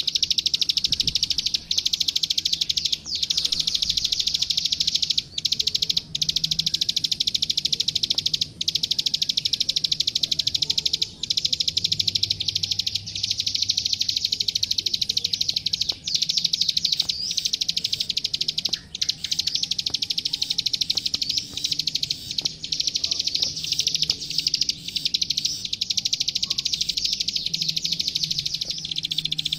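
Plain prinia (ciblek sawah, called klik-klik) singing a continuous, very rapid run of high ticking notes, with only a few brief breaks.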